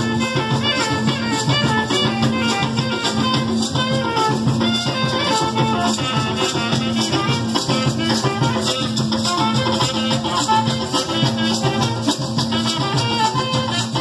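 Carimbó band playing live, with percussion keeping a fast, steady rhythm and no singing.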